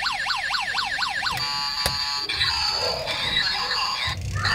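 Toy police car's electronic siren sounding a fast yelp, quick rising sweeps about four a second. About a second and a half in it switches, with a click, to a busier, noisier electronic sound effect.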